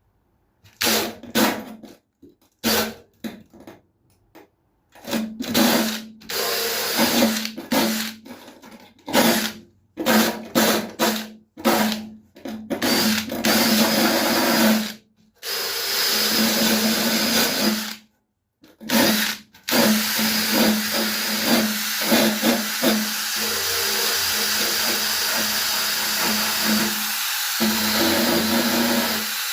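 Electric drill with a wire brush head scouring paint off the metal floor of a van, back to bare metal around a hole to prepare it for fibreglass filler. It starts and stops in many short bursts, then runs continuously from about two-thirds of the way through.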